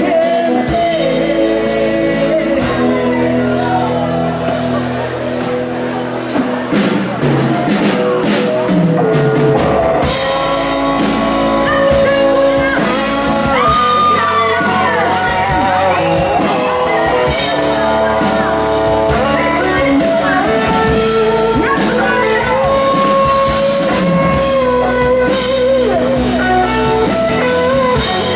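Live rock band playing: a man singing over guitars and a drum kit, with the drums and cymbals coming in fuller about ten seconds in.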